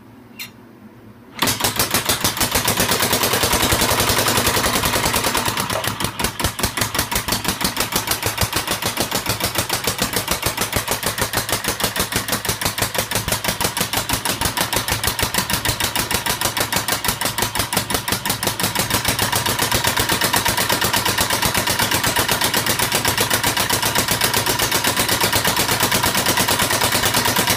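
A homemade compressed-air engine starting up about a second and a half in as the air supply is turned back on, then running fast with a rapid, even train of sharp air-exhaust pulses.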